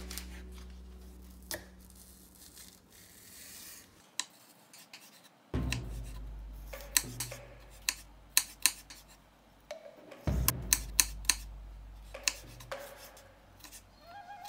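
Kitchen knife slicing spring onions on a wooden cutting board: irregular sharp taps of the blade through the onion onto the board, coming in quick runs about halfway through and again a little later.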